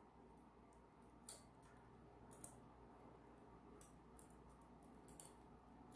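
Near silence broken by a handful of faint metallic clicks and ticks, spaced irregularly: a chain whip and cassette removal tool being fitted onto the steel cogs and lockring of a bicycle's rear cassette.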